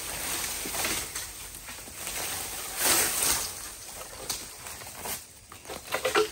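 Cut bamboo and dry leafy brush rustling and crackling as a long bamboo pole is hauled out of a brush pile, swelling loudest about three seconds in, with a few sharp knocks of bamboo near the end.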